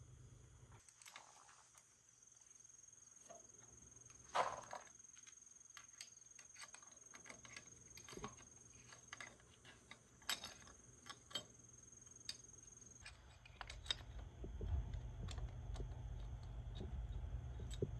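Scattered light clicks and taps of hand tools on metal parts, the sharpest about four seconds in. A low rumble builds up near the end.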